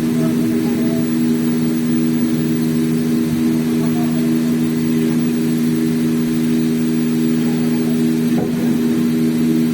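A CNC plate sawing and milling machine running with a steady, unchanging machine hum.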